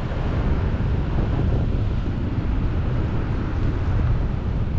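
Wind rushing over the microphone of a paraglider's camera in flight, a steady, low, even noise.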